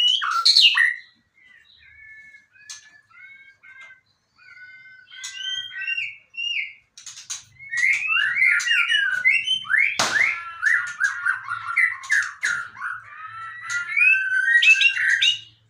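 White-rumped shama (murai batu) singing: a loud burst of notes at the start, then spaced, softer whistled phrases, and from about seven seconds in a dense, rapid run of varied whistles and chattering notes. A sharp click about ten seconds in.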